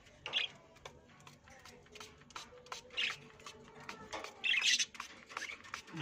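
A few short harsh squawks from caged pet parrots, the longest near the end, over faint background music.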